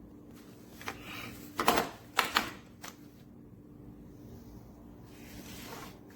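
Close handling noise: a few sharp clicks and rustles between about one and three seconds in, then a softer rustle near the end, over a faint steady hum.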